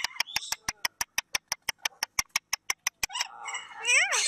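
A fast, even run of sharp clicks, about eight a second, for about three seconds. Then parakeet chattering, ending in a squawk that rises and falls.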